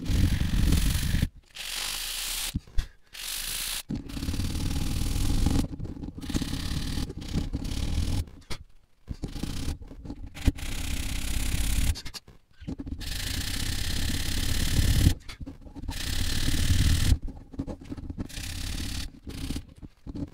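Sanding sponge block rubbed along hardened polymer repair compound filler in a car's climate-control bezel, sanding the filler down flush with the bezel. A dry scraping in strokes of one to a few seconds, broken by short pauses.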